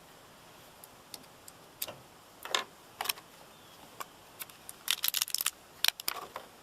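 Small hard parts being handled: scattered sharp clicks and light rattles, with a quick flurry of clicks about five seconds in.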